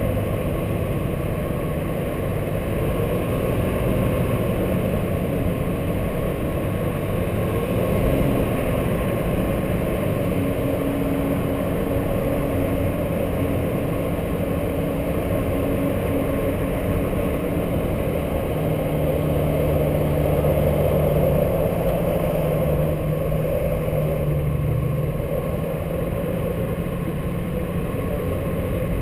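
Engine of a 4x4 driving slowly along a snow-covered track, a steady low rumble with the engine note shifting a couple of times.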